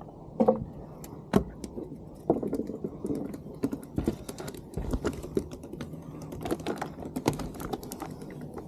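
Handling noise: a quick, irregular run of sharp clicks and light knocks.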